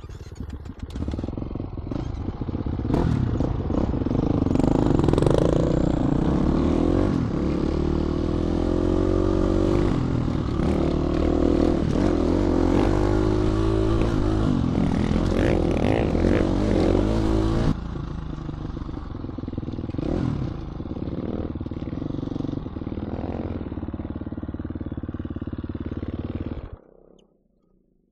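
GasGas 350 four-stroke single-cylinder dirt bike engine running under load on a trail, its pitch rising and falling with the throttle. It runs loudest for the first two-thirds, drops to a lower, steadier run, and cuts off abruptly near the end.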